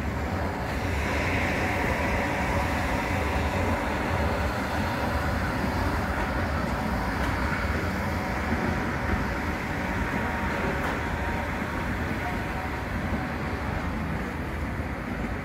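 Southern Class 377 electric multiple unit pulling away, a steady rumble of wheels on rail with a hum of faint steady tones from its traction equipment, slowly fading.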